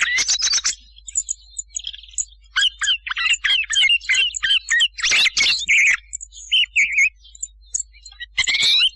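Thrush calls and song played as a hunting lure: a fast, broken string of sharp chirps and short whistled notes, some sliding in pitch, coming in clusters with brief pauses between them.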